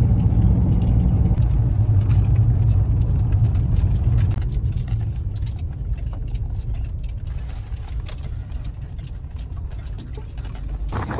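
Car on the road: a steady low engine and road rumble that grows gradually quieter over the second half.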